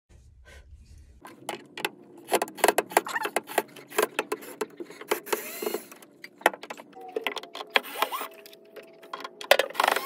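Screws being driven out around an Electrolux washing machine's door with a cordless drill-driver: a rapid string of clicks and metallic rattles from the screws and door parts. The drill's motor whines steadily for about two seconds near the end.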